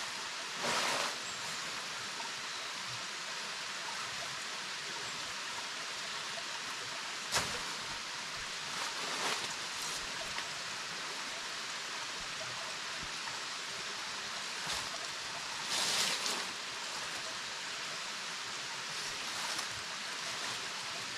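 Steady rush of a rocky stream with a small waterfall. A few brief rustles of tent fabric and poles being handled, with one sharp click about a third of the way through.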